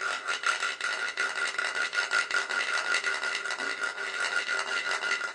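Wooden guiro scraped rapidly back and forth with a stick: a fast, continuous rasp of clicks with a steady ringing pitch from the hollow body underneath.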